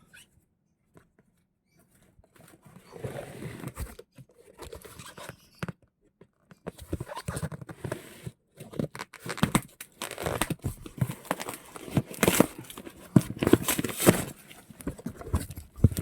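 Packaging being torn open and crinkled by hand, with irregular rips, rustles and sharp handling clicks and knocks that start about two and a half seconds in and grow busier and louder toward the end.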